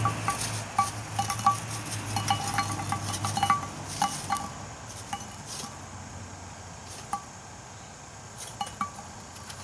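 Lit charcoal briquettes tumbling from a chimney starter onto a cast-iron Dutch oven lid: a quick run of clinks, each ringing briefly off the iron. After about four seconds the clinks thin out to a few scattered ones.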